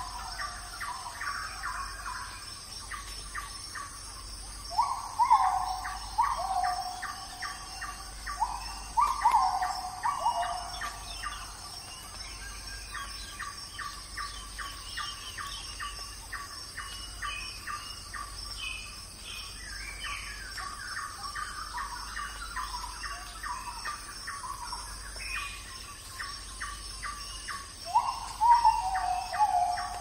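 Forest birdsong: several birds calling, with rapid repeated chirps and a few louder falling whistled calls about five seconds in, around nine to ten seconds, and near the end, over a steady high hiss.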